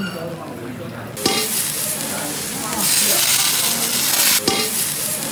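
Shrimp sizzling on a steel teppanyaki griddle under a metal dome lid: a hiss that starts suddenly about a second in and grows louder about three seconds in. A single knock comes near the end.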